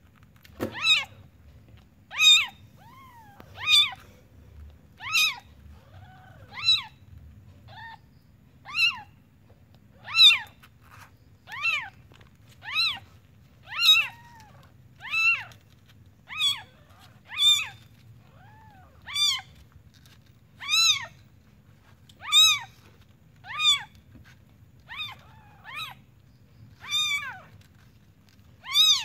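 Newborn kitten mewing in short, high cries over and over, about one every second and a half, each cry rising and then falling in pitch.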